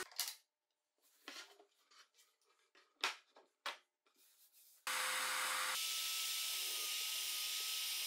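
A few short, soft knocks and rubs of plywood pieces being set in place on a table saw's top. About five seconds in, a steady hiss with a faint steady whine begins and holds.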